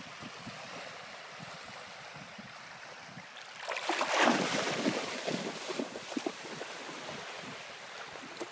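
A dog wading and splashing through shallow sea water, loudest for about three seconds in the middle, over a faint steady wash of water and wind.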